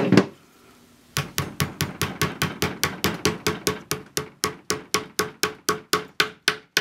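Small tack hammer rapidly tapping a carpet tack home through thick folded burlap trim, about five light, ringing strikes a second, starting about a second in.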